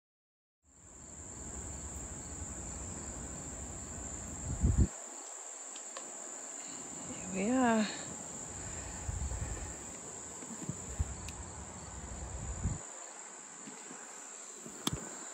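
Steady high-pitched drone of crickets or other insects, with a low rumble on the microphone that comes and goes. A short wavering call sounds about halfway through, and sharp knocks come once early and again at the very end.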